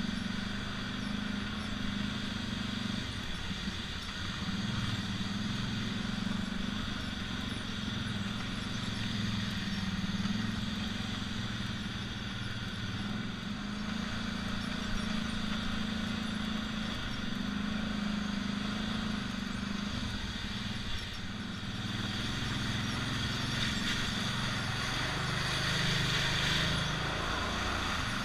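ATV engine running as the quad rides a rough dirt trail, its note wavering with the throttle, over steady wind and trail noise that grows louder near the end.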